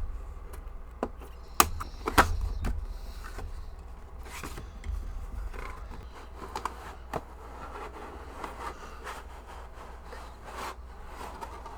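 Cardboard packaging of a gaming headset being opened and handled: scraping and rustling of the box and its inserts, with a few sharp knocks, the loudest two about a second and a half and two seconds in.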